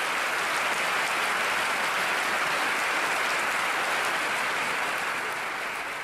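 A large audience applauding: dense, steady clapping that begins to die away near the end.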